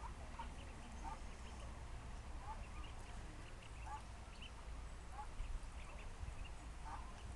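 Mallard hen and ducklings calling: short, soft calls roughly once a second, with fainter high chirps in between.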